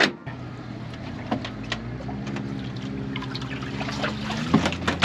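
A steady motor hum on a boat, with water trickling and splashing and a few sharp knocks.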